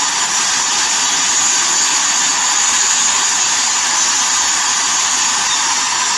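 Steady, loud rush of hurricane rain and wind.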